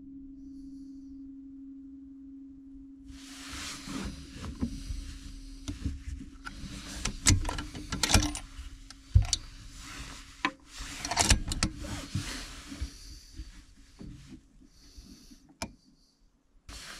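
Handling noise from a Tikka T3x TAC A1 bolt-action rifle between shots: irregular clicks, knocks and rustling as the rifle is worked and a spent .308 case is set down on the bench. This starts about three seconds in, after a steady low hum, and trails off into a few faint clicks near the end.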